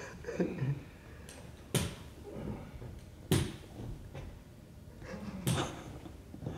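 A forearm crutch and shoes knocking on a hard hall floor as a man hobbles slowly along: three sharp knocks about a second and a half apart. A short low vocal groan comes about half a second in.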